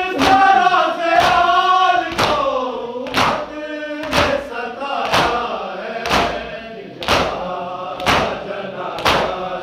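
A noha, a Shia lament, chanted by a group of voices, with a sharp slap keeping time about once a second in the manner of matam chest-beating.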